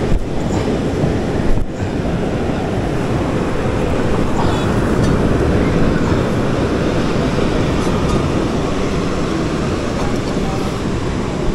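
Steady low rumble of wind buffeting the microphone, without any tone.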